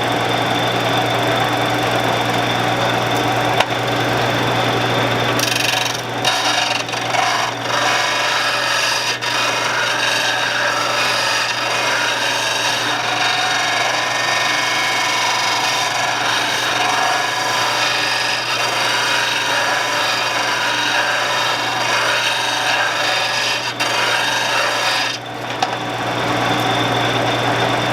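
Shopsmith motor running steadily while a lathe tool is held against its spinning abrasive and ground to a new bevel angle. The scraping grind grows denser about five seconds in and eases off near the end.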